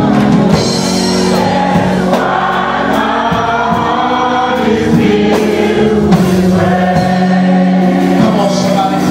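A choir singing gospel music over held chords.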